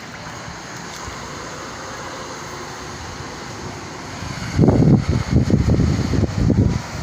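Wind buffeting the microphone: a steady outdoor hiss, then gusts of rough, irregular low rumbling from about four and a half seconds in.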